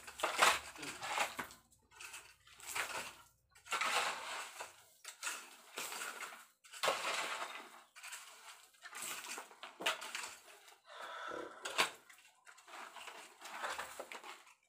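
Shovel scraping and digging into a pile of soil and broken rubble, in irregular gritty strokes about once a second.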